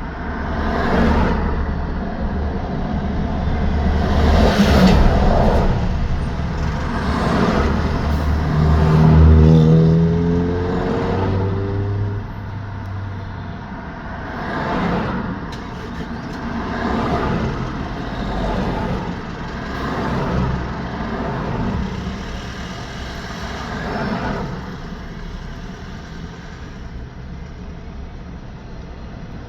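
Road traffic, with vehicles passing one after another every few seconds over a steady tyre and road noise. About nine seconds in, one louder vehicle goes by, its engine note dropping in pitch as it passes.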